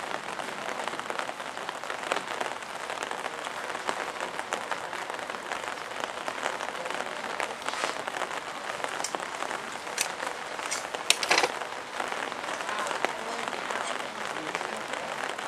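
Steady hiss of light rain falling, with a couple of brief sharp sounds about ten and eleven seconds in.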